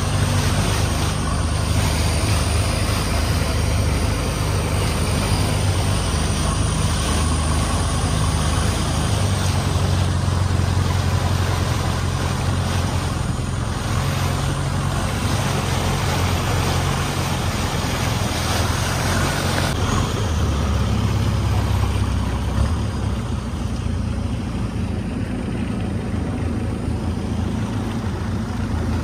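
A longtail boat's engine running steadily under way: a low, even drone under a loud rushing noise.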